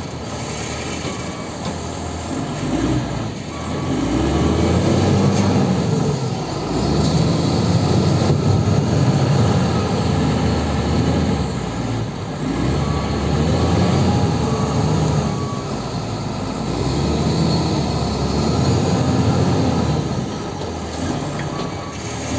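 LiuGong 856 wheel loader's diesel engine working through a load cycle, its revs climbing and falling back in long swells every few seconds as the machine digs, drives and lifts.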